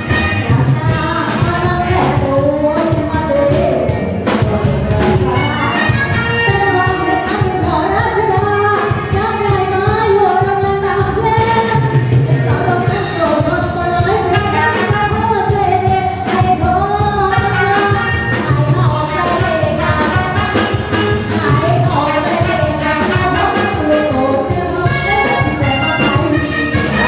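Live band playing an upbeat Thai luk thung song with a steady drum beat, and a woman singing the lead into a microphone.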